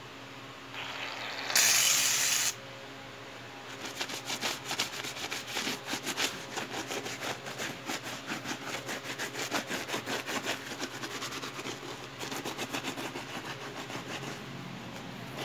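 A short, loud spray hiss about two seconds in, like an aerosol foam cleaner, then the foam-covered leather of a sneaker being scrubbed in quick back-and-forth strokes, about three a second, that stop near the end.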